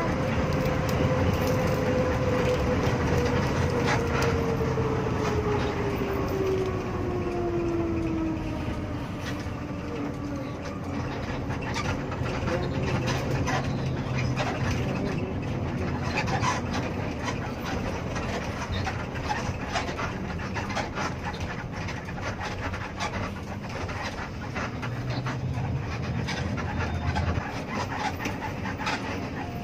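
Cabin noise inside an intercity bus on the move: engine and road noise, with a whine that falls steadily in pitch over the first ten seconds as the bus slows. Through the rest the cabin rattles and clicks over the road.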